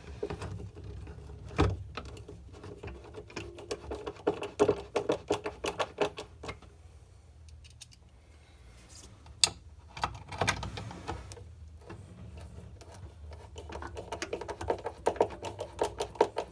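Phillips screwdriver driving screws into the pinball cabinet, making runs of rapid clicking with a few single sharp clicks between them.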